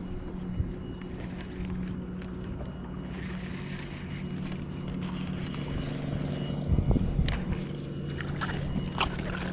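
Steady hum of a boat's motor with a faint high whine. Several clicks and knocks come in over the last few seconds.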